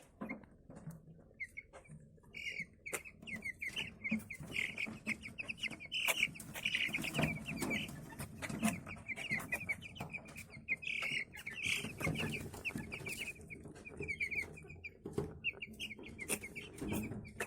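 A brooder full of broiler chicks peeping continuously, with short, sharp sneezes scattered among the peeps. The chicks are sick with a persistent wheeze and sneeze whose cause the keeper does not know.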